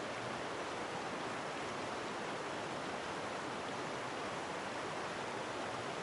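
River water rushing over bedrock ledges and small rapids, a steady even rush.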